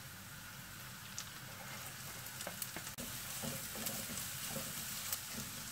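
Sliced onions, green chilli, ginger and garlic sizzling steadily in hot oil in a non-stick kadai on full flame. Diced carrots are added and stirred in with a spatula, bringing light scrapes and taps against the pan from about halfway.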